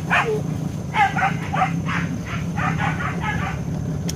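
Hunting dogs barking in quick, high yelps, about a dozen in a few seconds, while chasing and holding a deer at bay in the undergrowth. A steady low hum runs underneath.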